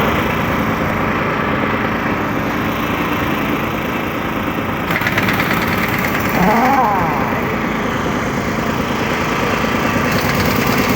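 Steady engine noise from roadside traffic, with one engine rising in pitch as it speeds up about six and a half seconds in.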